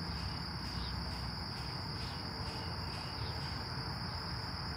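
Insects trilling, a steady high-pitched drone that does not break, over a low background hum.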